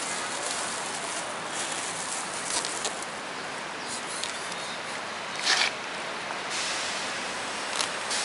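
Plastic bag of dry cat food rustling and crinkling in short bursts, the loudest about five and a half seconds in, over a steady hiss.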